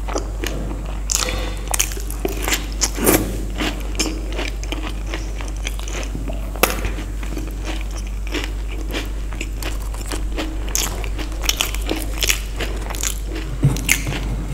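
Close-miked biting and chewing of crisp fried Indian street snacks, with many sharp crunches, over a steady low hum.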